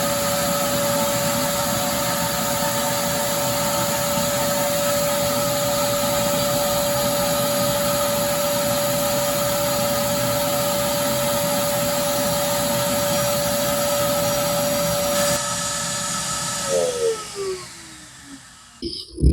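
Motor-driven oil extraction pump running steadily, sucking the old engine oil out through a hose, with a steady whine over a hiss. About fifteen seconds in the sound changes, then the motor winds down with falling pitch and stops near the end.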